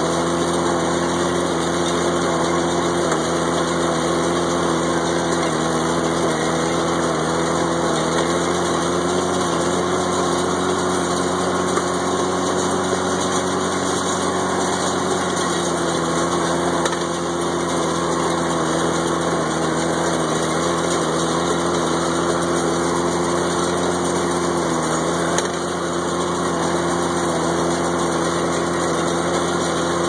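International Harvester 656 tractor engine running steadily at working speed, driving a New Holland 315 square baler with a bale thrower through windrowed hay. The engine note rises slightly around the middle and then settles back.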